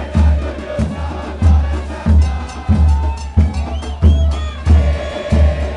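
Football crowd chanting in unison over a steady bass drum beat, about three beats every two seconds.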